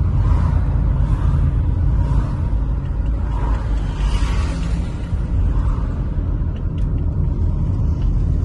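A car being driven, with a steady low rumble of road and wind noise.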